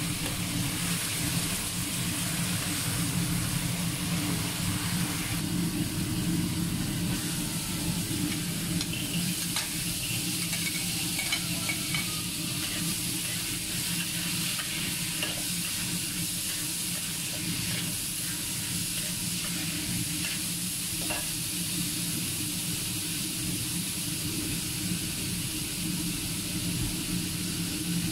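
Minced pork, red chilies and fava beans sizzling in a hot wok while a metal spatula stirs and scrapes through them, with a few sharper scrapes and taps against the pan in the middle. A steady low hum runs underneath.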